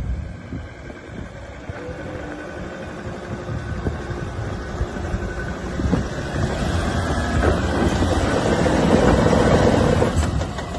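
Ford Ranger's 3.2-litre five-cylinder turbo-diesel working under load up a rocky dirt hill climb, getting louder as the truck comes close, with the tyres crunching and scrabbling over rocks and loose dirt.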